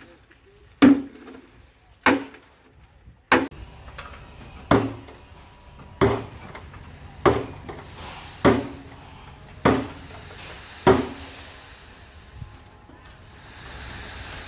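Heavy hammer blows on a steel concrete bucket, one about every 1.2 seconds, nine in all, each ringing briefly, stopping about 11 seconds in.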